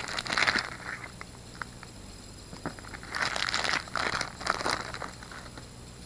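A thin clear zip-lock plastic bag crinkling as it is handled and small tools are pulled out of it. The rustling comes in two spells, at the start and again from about three to five seconds in, with a few light clicks between.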